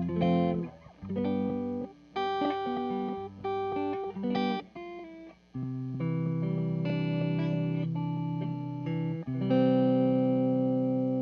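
Electric guitar, a 1976 Gibson ES-335, played through a Red Panda Particle granular delay pedal: a run of short picked notes, then sustained chords, the last one ringing out and slowly fading.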